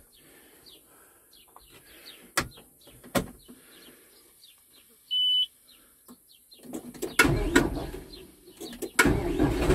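Birds chirping and two sharp clicks. A short high electronic beep comes about five seconds in as the ignition comes on. Then the John Deere 5083E tractor's four-cylinder diesel engine is cranked and catches near the end, settling into a steady run.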